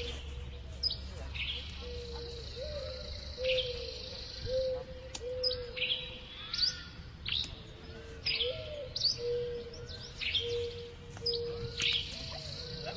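Wild songbirds chirping and calling, with short, sharp, high chirps sweeping down in pitch about once a second, over a faint steady hum.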